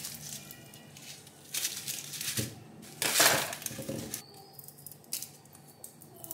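Kitchen handling sounds: rustling, knocks and light clatter of containers and utensils, with a louder rustling burst about three seconds in and a few sharp clicks after it.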